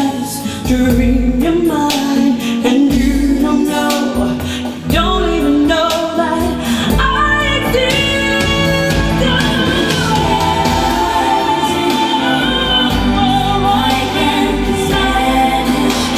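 Vocal music with singing and strong bass, played through home-built speakers fitted with Ciare PW 256 and Sica 9470 drivers, as a sound quality test.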